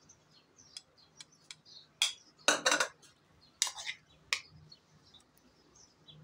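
Steel spoon clinking against drinking glasses and a bowl as pieces are spooned into the drinks: a string of sharp clinks, loudest in a quick cluster about two and a half seconds in.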